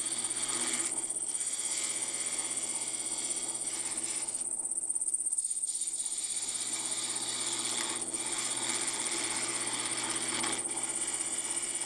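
Wood lathe running with a steady high whine and hum while a carbide tool cuts a spinning Bois d'Arc duck call barrel. The cutting noise drops away briefly about halfway through, as the tool comes off the wood.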